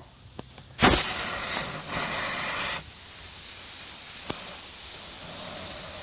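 Compressed air hissing from an air chuck as a wheelbarrow tire's inner tube is filled. The hiss starts suddenly about a second in, stays loud for about two seconds, then drops to a softer steady hiss.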